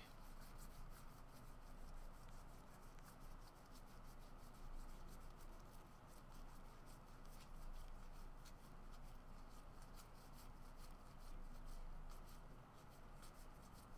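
Faint rustling and quick irregular ticks of glossy trading cards being flipped one at a time through a stack by hand, card sliding against card.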